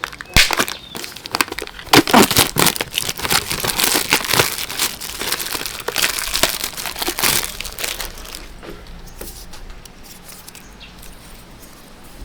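Packaging being handled and opened: dense crinkling and rustling with sharp crackles, busiest for the first eight seconds or so, then dying down to quieter, sparser handling.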